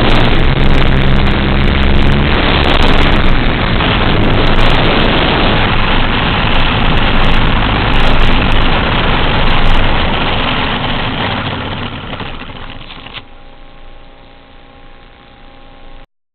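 FPV drone's motors and propellers running with wind noise, heard through the onboard camera's microphone, fading away over the last few seconds.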